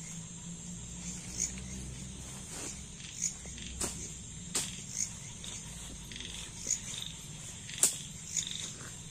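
Irregular sharp clicks and knocks from the poles and frame of a dome tent being handled as it is pitched. Under them runs a steady high drone of night insects.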